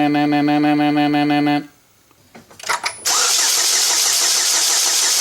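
2007 Chevy Cobalt's 2.2L Ecotec engine being cranked by the starter motor: a steady pulsing whine that turns over without firing. It stops about one and a half seconds in, then after a short pause and a couple of clicks the cranking starts again about three seconds in, sounding noisier. This is a crank-but-no-start, which the owner traced to a corrupted fuel trim setting.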